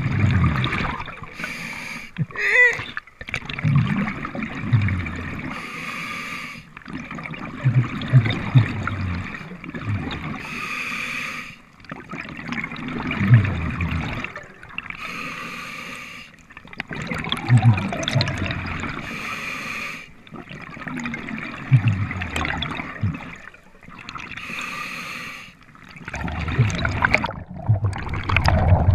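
Scuba diver breathing through a regulator underwater: a hiss on each inhale, then a burst of low, gurgling exhaust bubbles on each exhale, repeating every few seconds.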